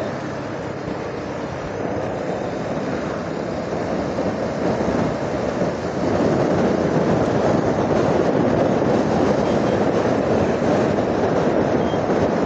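Motorcycle on the move at highway speed: a steady rush of wind on the microphone mixed with engine and tyre noise, getting a little louder about halfway through.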